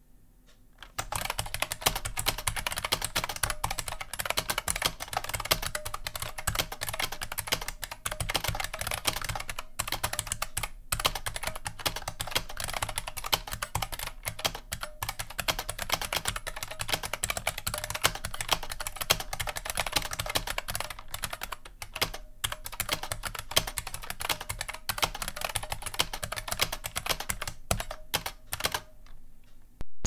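Continuous typing on an IBM Model M15 Adjustable keyboard with buckling-spring switches: a dense clatter of key clicks that starts about a second in, with a few short pauses.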